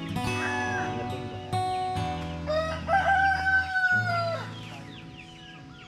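A rooster crows once, about two and a half seconds in: one long call that rises, holds and falls away. Background music with sustained notes plays throughout.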